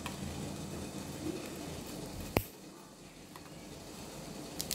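Fresh lychee being peeled by hand: the rough, brittle skin cracks once sharply about halfway through, with a few faint clicks of the peel near the end.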